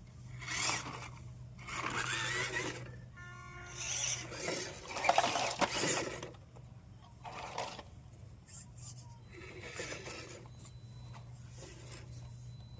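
Toy RC car's electric motor and gears whirring in several short bursts of varying length, the loudest about five seconds in, over a steady low hum.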